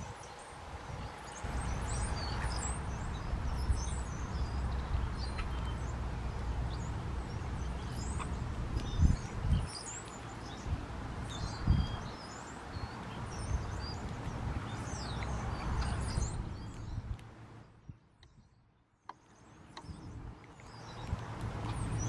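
Birds chirping with many short, high calls overlapping throughout, over a steady low rumble that fades out about three-quarters of the way through; a couple of dull thumps stand out near the middle.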